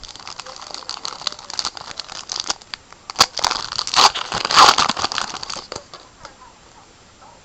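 Plastic foil wrapper of a 2011 Score football card pack crinkling and tearing as it is opened, busiest and loudest about three to five seconds in.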